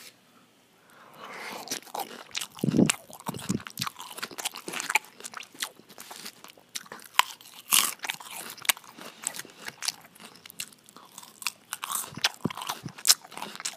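Mouthfuls of Caesar salad bitten and chewed close to a microphone: crisp romaine lettuce crunching in quick, irregular snaps, starting about a second in.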